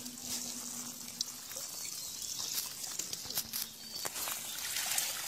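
Shallow water trickling and sloshing around a dense mass of small eel-like fish wriggling in a net enclosure, with a few short wet clicks as handfuls are lifted out.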